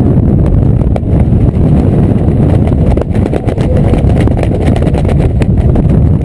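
Heavy wind buffeting the camera microphone during a tandem skydive descent: a loud, steady low rumble with frequent crackles.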